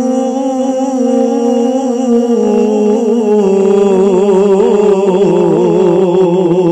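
A man's solo voice singing a devotional Sufi kalam through a PA, unaccompanied, drawing out long held notes. From about halfway in the notes turn into wavering ornaments.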